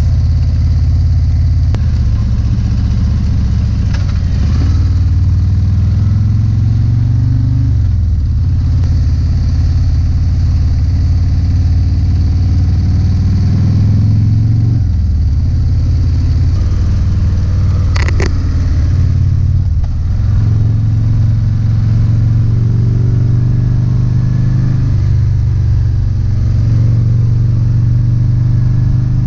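Harley-Davidson CVO ST's V-twin engine running under way, its pitch climbing and dropping back through the gears about four times, with a steady rush of wind. A single sharp click comes about two-thirds of the way through.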